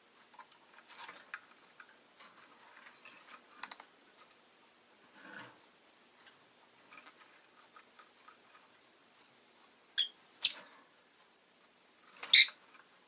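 Rosy-faced lovebird giving three short, sharp, high-pitched chirps near the end, after several seconds of faint clicking and small rustling.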